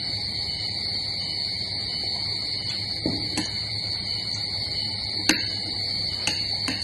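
Metal spoons clinking against ceramic plates and bowls while eating, a few short clinks in the second half, the sharpest about five seconds in. Under it runs a steady high-pitched whine.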